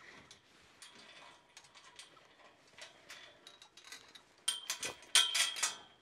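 A chain latch on a steel pipe corral gate being worked: light metal clicks at first, then a loud rattling clatter of chain against the pipe, with a ringing tone, in two bursts near the end.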